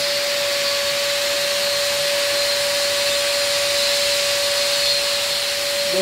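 Electric hand blower running steadily: a constant whine over a rush of air.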